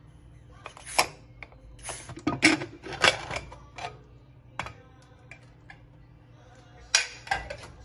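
Stovetop pressure cooker being opened: metal clicks and clanks as the weight on the vent is handled and the lid is twisted free and lifted off, loudest about a second in, in a cluster around two to three seconds in, and again near the end.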